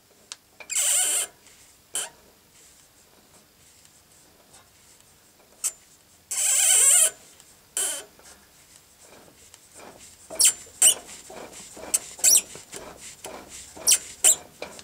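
Metallic squeaking that the owner suspects comes from a worn universal-joint cross, though the cause is uncertain. Two long high squeaks come about a second in and again at six to seven seconds, then a run of short squeaks from about ten seconds on.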